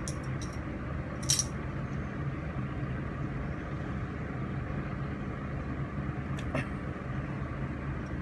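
A few short, sharp clicks and crunches of someone eating crispy fried tempe by hand, the loudest about a second in and a pair near the end, over a steady low hum.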